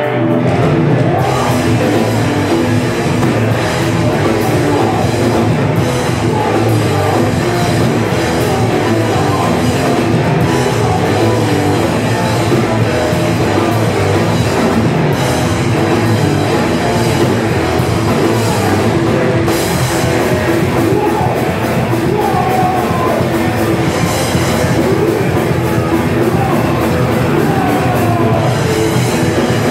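Hardcore band playing live, with electric guitars, a drum kit and vocals.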